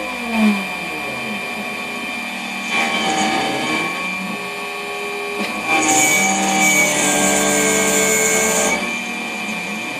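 High-speed CNC machining: a steady high spindle whine, with motor tones that step from pitch to pitch as the machine moves. About six seconds in there is a louder, hissier stretch of about three seconds that stops abruptly.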